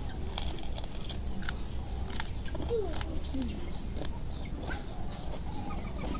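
Faint bird calls, a few of them short and falling in pitch, over a low steady hum and scattered small clicks.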